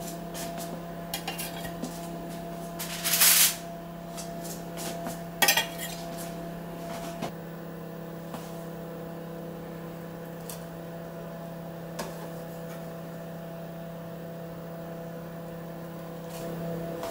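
Kitchen utensils and crockery clattering and clinking over a steady mechanical hum. The two loudest clatters come about 3 and 5.5 seconds in, with lighter clicks between and after.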